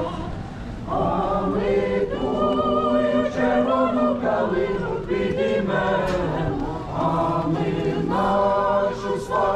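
Small mixed choir of men and women singing a Ukrainian song unaccompanied, several voices together holding long notes.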